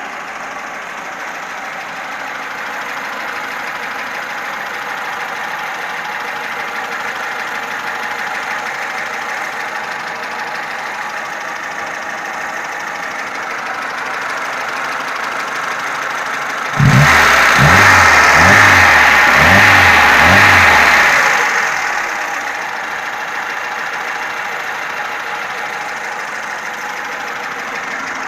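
Car engine running hot with a knock that the owner says appears only once the engine is warm and is absent when it is cold. About two-thirds of the way through it gets louder for roughly four seconds with a pulsing low throb, then settles back.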